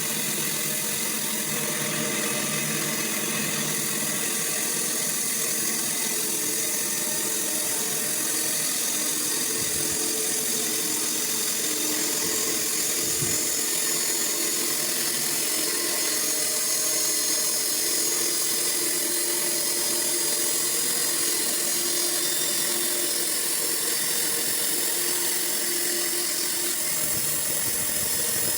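Sawmill running: a continuous, steady machine noise with no breaks.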